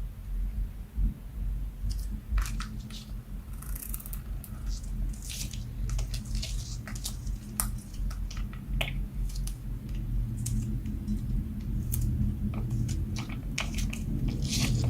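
Slime being worked by hand: irregular sticky clicks and crackles over a low handling rumble.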